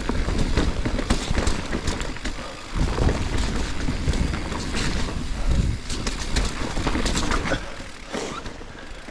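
Specialized Levo electric mountain bike being ridden over a rough forest trail: tyres and frame rattling and clattering over rocks and roots in quick irregular knocks, over a heavy low rumble that eases near the end.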